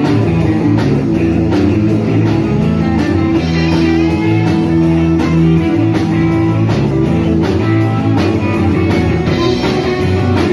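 Rock music: guitars over a drum kit keeping a steady beat.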